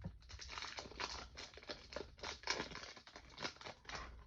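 Foil Yu-Gi-Oh booster pack wrapper being torn open and crinkled by hand: a run of quick, irregular crackles.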